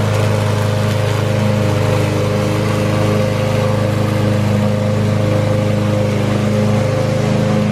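Briggs & Stratton 163 cc single-cylinder engine of a Craftsman M230 self-propelled walk-behind mower running at a steady speed while mowing grass.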